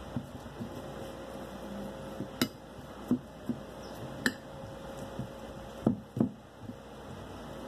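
Metal spoon mashing cooked potato in a bowl: soft squishing with irregular knocks and clinks of the spoon against the bowl, two sharper clinks about two and a half and four seconds in and a few heavier knocks near six seconds.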